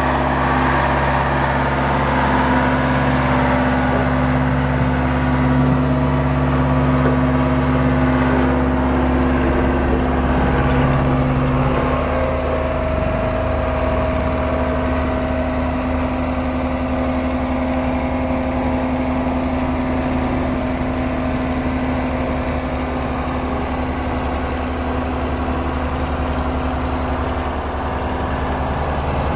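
A large engine running steadily at a constant speed, its note changing slightly about twelve seconds in.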